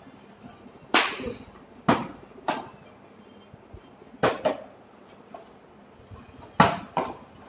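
Plastic water bottle flipped and landing on a marble floor: several sharp knocks and clatters, each landing often followed by a smaller bounce, the loudest near the end. A faint steady high-pitched tone runs underneath.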